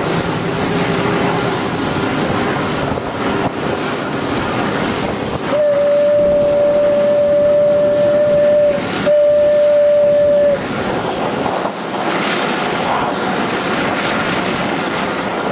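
Steam whistle of steam locomotive 25-026 blowing two steady blasts, a long one of about three seconds and then a shorter one, heard from the cab over the locomotive's running noise and exhaust beats as it pulls away.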